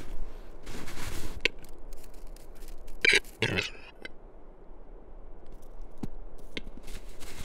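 Male western capercaillie (wood grouse) displaying close by: scattered sharp clicks and one loud, harsh double call about three seconds in, with crunching steps in snow.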